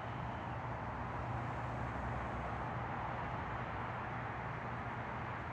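Steady distant rumble and hiss of an aircraft passing overhead, swelling slightly partway through.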